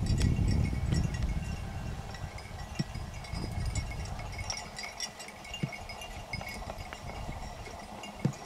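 Small collar bells on running hunting dogs, tinkling continuously. A low rumble is heard in the first second or so, and there are a few low knocks, the clearest near the end.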